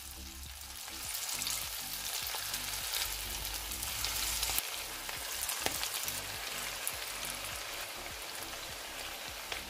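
Batter-coated beef slices deep-frying in hot sunflower oil in a frying pan: a steady sizzle with fine crackling, which grows louder about a second in as more slices go into the oil.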